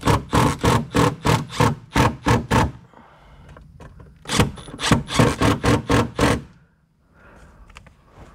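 Cordless drill/driver driving a sun-visor screw home, its clutch slipping in a steady clicking of about three to four strokes a second over the motor's hum. This comes in two runs of two to three seconds, with a short pause between them.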